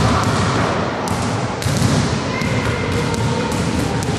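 A basketball bouncing on a hardwood gym floor: a run of irregular thuds and taps as the loose ball comes down after a shot and is gathered up, over a steady low rumble.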